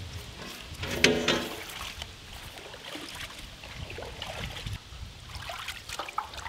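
Water sloshing and trickling as pieces of raw tuna are washed by hand in a large aluminium pot of water, with one short knock about a second in.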